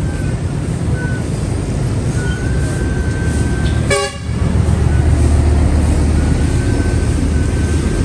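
Street traffic with a vehicle engine running close by and a short horn toot about four seconds in; the engine rumble grows louder just after the toot.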